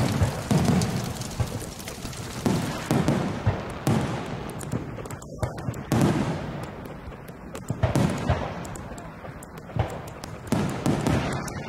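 Fireworks going off: a string of booms every second or two, each followed by crackling.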